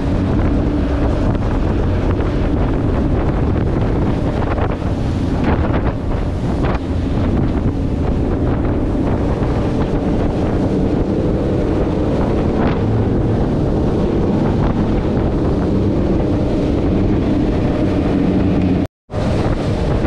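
Hydra-Sports 28 boat running fast on open sea: its twin Suzuki outboards running steadily under wind noise on the microphone and the rush of water past the hull. The sound cuts out for a split second near the end.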